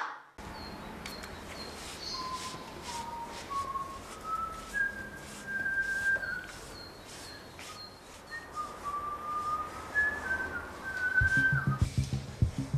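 A person whistling a slow tune in held notes that step up and down, starting about two seconds in. Near the end a low rhythmic beat comes in under it.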